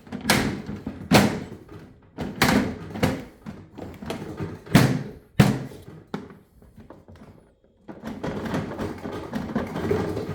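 Hard plastic knocks and clunks of a Ryobi LINK storage crate being pushed and worked onto a stacked LINK tool box to latch it: about six sharp knocks over the first six seconds, then a short lull and some scraping and shuffling of the plastic near the end.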